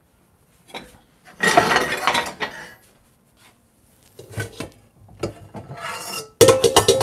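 Metal pots and pans being handled: a scraping rustle, a few light knocks, then a quick run of sharp clanks with a short metallic ring near the end.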